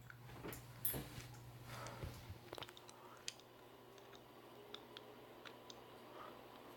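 Old hugger-style ceiling fan just switched to high speed: a faint steady hum for about the first two seconds, then a faint steady rush of motor and air. Scattered light clicks and a few knocks sound over it.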